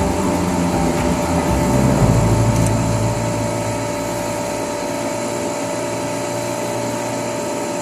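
Steady mechanical hum with a couple of steady tones running through it; a deep rumble underneath is loud until about three seconds in, then fades away.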